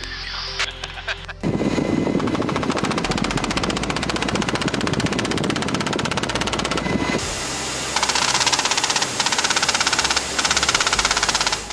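Helicopter door-mounted machine gun firing long automatic bursts, a fast steady rattle of shots that starts about a second and a half in. It pauses briefly around seven seconds in, then fires again.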